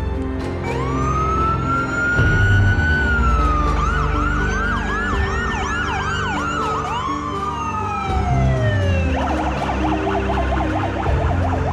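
Electronic emergency sirens of an ambulance and a paramedic response vehicle: a wail rises about a second in, then a rapid yelp sweeps up and down while a second siren glides over it. The wail falls away around eight or nine seconds in and a fast warble takes over near the end. Background music plays underneath.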